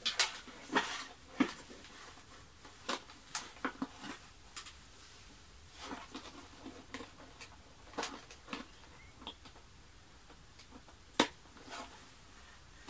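Scattered small clicks and taps of multimeter test probes and fingers against the red plastic housing and wiring of an Eta Neptun vacuum cleaner, with one sharper click near the end; the vacuum's motor is not running.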